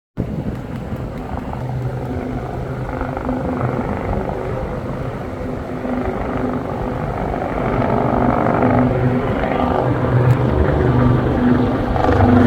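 Lynx helicopter's rotor and turbine engines running, a steady throbbing rumble that grows louder toward the end.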